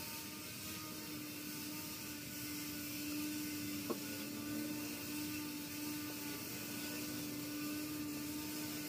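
A small motor running steadily with an even hum, and one short click about four seconds in.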